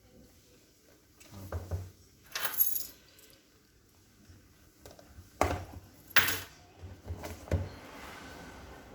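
Handling noise from unboxing a phone: a few separate knocks and short scraping rustles of packaging and accessories being moved, the loudest two about two and a half and six seconds in.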